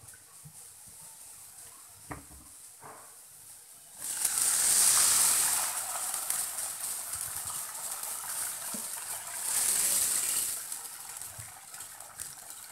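Water poured from a bowl into a hot kadhai of oil with fried onions and peanuts, hissing and sizzling as it hits: the tempering being flooded with water for rava upma. A few light knocks come first, then the hiss starts suddenly about four seconds in and swells again around ten seconds with the next bowlful.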